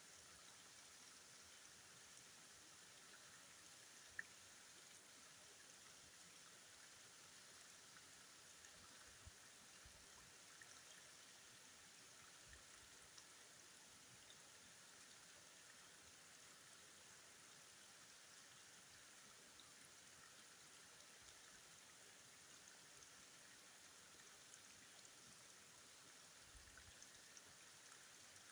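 Faint steady rush of flowing river water, with one small click about four seconds in.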